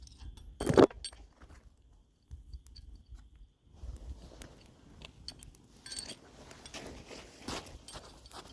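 Handling noises: scattered small clicks and rustling, with one loud, brief burst of noise about a second in.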